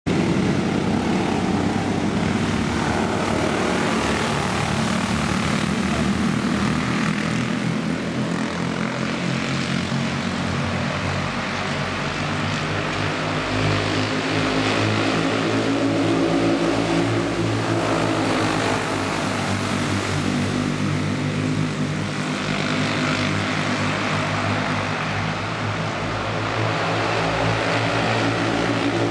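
Several small racing-kart engines buzzing together as a pack of karts laps the track, their mixed pitches rising and falling and the sound swelling a few times as they pass.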